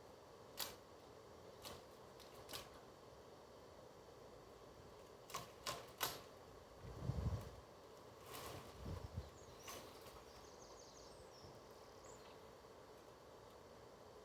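Scattered sharp clicks and snaps, with a few dull thuds around the middle and faint high chirps near the end.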